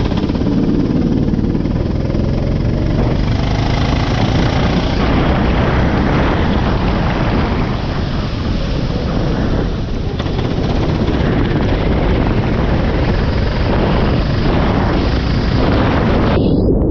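Racing go-kart engine running under load, with a loud rushing noise over it.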